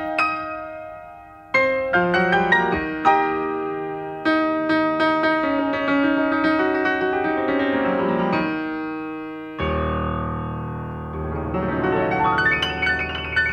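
Background piano music: a slow melody of single notes and chords, each note ringing and fading, turning to a fuller, deeper passage about ten seconds in.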